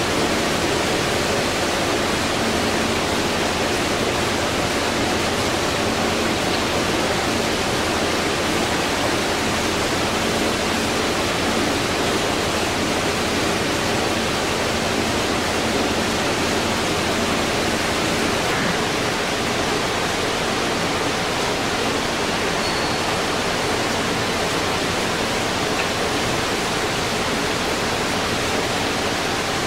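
LeBlond ND engine lathe running steadily under power: an even rushing hum with a few steady held tones beneath it.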